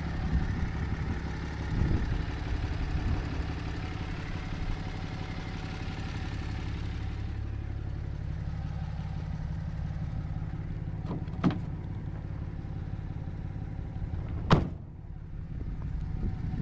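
Pickup truck engine idling steadily, with two sharp clicks about three seconds apart in the second half.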